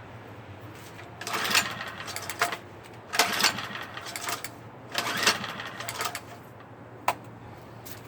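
Three pulls on the recoil starter of a Champion 1200-watt generator's 80cc engine, each a rattling whirr about a second long, about two seconds apart. A short click follows near the end.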